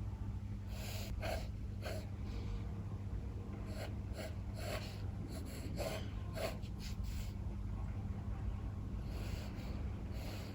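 Short, scratchy sketching strokes on paper, coming at uneven intervals about a dozen times. Under them runs a steady low rumble of strong wind.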